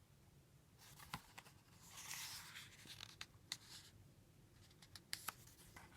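Faint paper rustle of a picture-book page being handled and turned, about two seconds in, with a few soft clicks and taps scattered around it; otherwise near silence.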